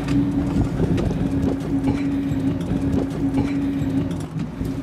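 Sport-fishing boat's engine running with a steady hum, under a rough wash of wind and water noise.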